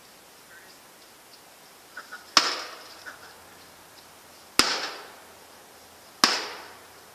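Three hard blows on a microwave oven's casing, about two seconds apart, each a sharp crack with a short ringing decay, with a couple of small knocks just before the first.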